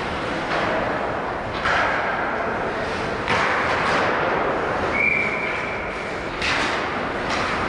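Ice hockey play in a rink: a steady hiss of skates on ice and arena noise, broken by several sharp knocks and thuds of sticks, puck and players. A referee's whistle sounds once, a flat high tone for about a second, about five seconds in.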